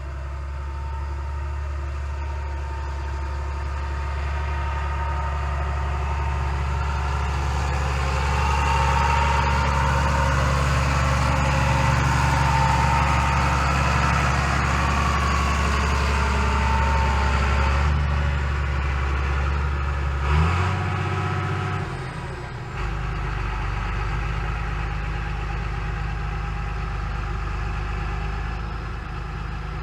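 Farm tractor engine running steadily, growing louder toward the middle. About two-thirds through, its note briefly jumps with a short knock, then drops back to a quieter, steady idle.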